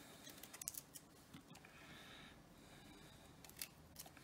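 Faint crisp snaps and small clicks of broccoli florets being broken apart by hand, with a quick cluster about half a second in and single snaps later on.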